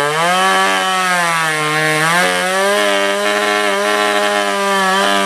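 Chainsaw engine running at high revs, its pitch sagging and recovering a few times in the first couple of seconds as it bites into the wood, then holding steady.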